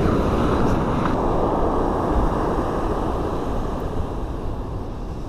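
Surf breaking and washing up a sand beach: a steady rush that is loudest near the start and slowly eases. Wind rumbles on the microphone.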